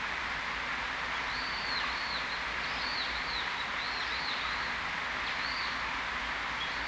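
Birds calling: short, high whistled notes, each rising and falling, in quick clusters throughout, over a steady background hiss.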